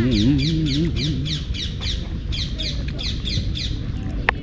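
A bird chirping over and over, about four short falling chirps a second. A man gives a wavering 'mmm' hum through the first second or so, and a single sharp click comes near the end.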